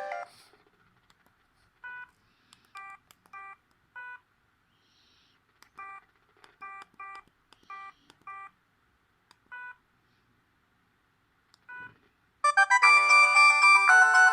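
Audiovox CDM 8400 clamshell cell phone: a short tone, then a string of brief electronic beeps at irregular intervals, typical of keypad presses while stepping through the ringtone menu. Near the end a loud ringtone melody with several notes sounding at once starts playing.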